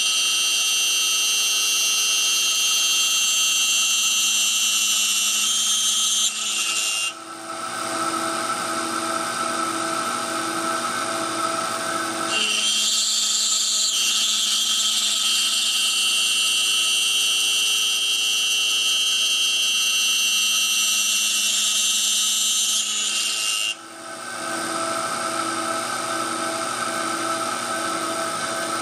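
CNC router spindle running and milling wood. A high cutting whine drops away twice for several seconds, leaving a lower hum that pulses about twice a second, then comes back.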